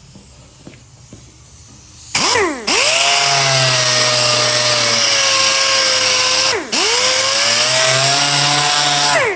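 Dual-action (DA) sander with a coarse, about 50-grit pad, sanding a tractor hood. It spins up with a rising whine about two seconds in and runs steadily with a hiss. A little after two-thirds through it briefly slows and spins back up, then stops just before the end.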